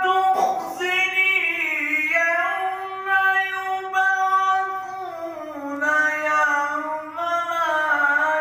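A man reciting the Quran in the melodic tajwid style (tilawat), drawing out long held notes that slowly rise and fall in pitch.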